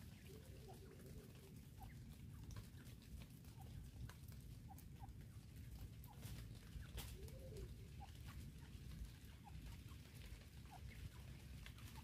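Faint, soft clucking from francolins, a few short low call notes scattered through, with a few light clicks.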